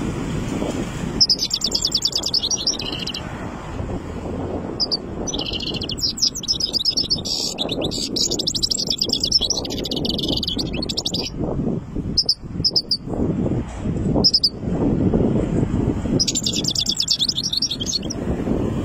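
Young European goldfinch, about three months old, singing strongly in bursts of fast, twittering high song: a short phrase about a second in, a long run of several seconds in the middle, a few single notes, then another phrase near the end. A steady low rumble of background noise runs underneath.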